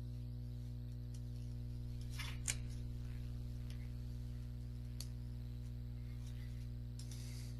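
A steady low electrical hum of the recording background, with a few faint clicks, one about two and a half seconds in and another about five seconds in.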